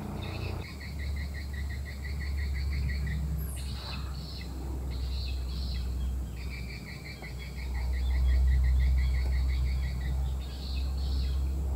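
An animal's rhythmic trilling call, pulsing about six times a second in two long runs, with a brief falling whistle between them. A low steady rumble runs underneath.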